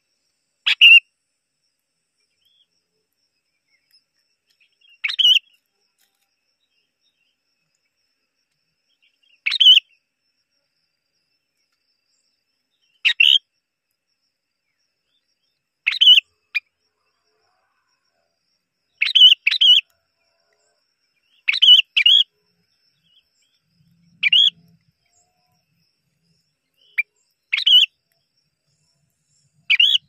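Bulbul chirping at the nest: short, sharp calls, single or in quick pairs, about every three seconds.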